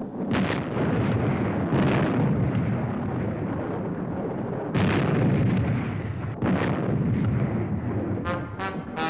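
A series of explosions, with heavy blasts a second or more apart over a continuous low rumble, and a few sharper cracks near the end. It is a rocket launch site being blown up.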